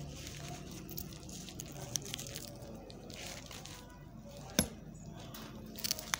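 Hands working a tightly tied plastic wrap loose from a loquat air layering: light handling noise with a few sharp clicks, the loudest a little over halfway through, over a low steady hum.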